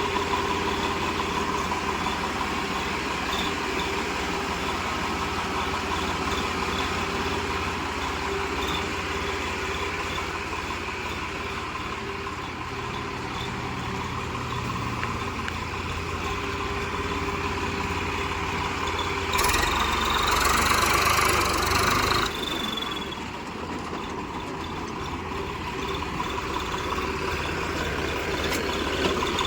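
Tractor diesel engine running steadily at idle, its silencer fitted with a turbo-whistle insert. About two-thirds of the way through, a louder rush lasts about three seconds, then the engine settles back to idle.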